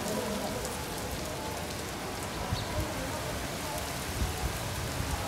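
Steady rain falling on a wet paved courtyard and its puddles: an even hiss with scattered faint drop ticks.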